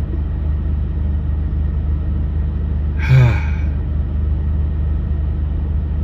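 A steady low hum throughout, with a man's single short vocal sound, a brief falling utterance, about three seconds in.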